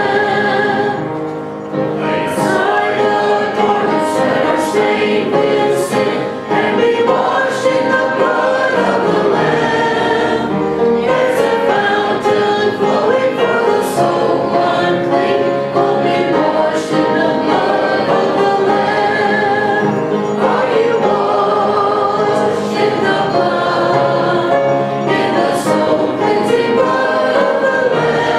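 Gospel song sung by a woman at a microphone, with musical accompaniment.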